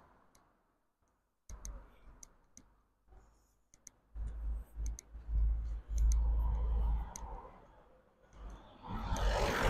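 Scattered light clicks while walking, with wind rumbling on the microphone in the middle and a loud breath out near the end.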